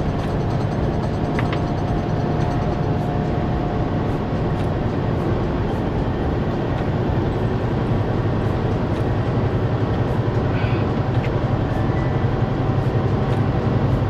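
Semi-truck cab at highway speed: a steady low engine drone mixed with road and tyre noise, growing a little louder in the second half.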